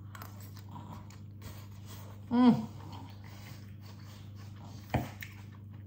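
A woman chewing a mouthful of cooked cabbage and cauliflower, with a short closed-mouth "mmm" of enjoyment about two and a half seconds in, the loudest sound. A single click near the end, over a steady low hum.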